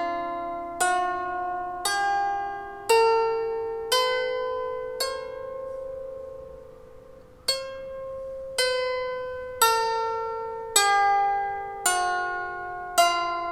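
12-string lyre harp plucked one note at a time, about one a second, each note ringing and fading under the next. The notes climb a scale, pause for a couple of seconds, then step back down.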